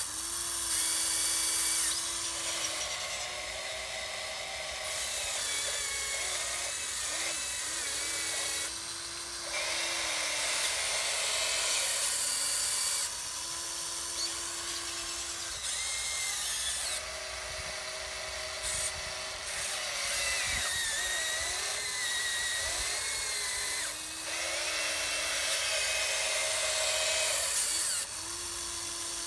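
Electric gear motors of a Huina 1580 RC excavator, clutches removed from its servos, whining as the boom, arm and bucket move. The whine comes in separate steady runs of a few seconds each, stopping and restarting at a slightly different pitch with each move.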